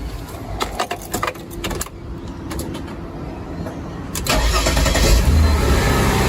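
A series of sharp clicks, then the Mercedes ML320's engine starts about four seconds in and settles into a steady idle, its repaired module connection (remelted dry solder joints) now letting it run.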